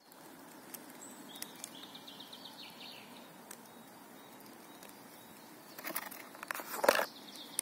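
Quiet outdoor background with a bird twittering briefly about two seconds in. From about six seconds in, a hand picks up the sheathed knife off the wooden stump: a few scrapes and knocks, the loudest just before the end.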